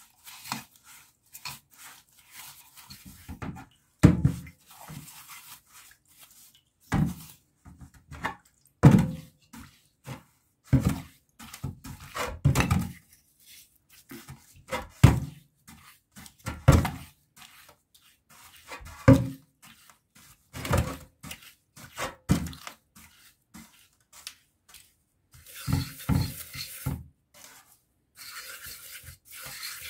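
Finned aluminium electric-motor housing being washed with a brush in a metal basin of liquid: irregular knocks as the casing is turned and bumped against the basin, with brush scrubbing and splashing between them. Near the end the brushing turns into a denser scrubbing hiss.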